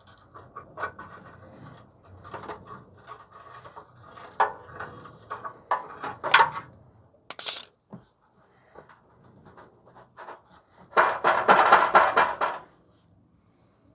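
Metal clinks and knocks of tools and exhaust parts being handled under the car, with a short hiss about seven and a half seconds in and a loud burst of rapid rattling, a little over a second long, near the end.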